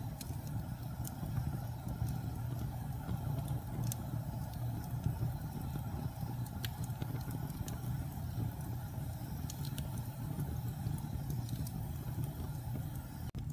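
Wood fire burning in a fireplace: a steady low rumble of the flames with scattered, irregular crackles and pops. The sound drops out for an instant near the end.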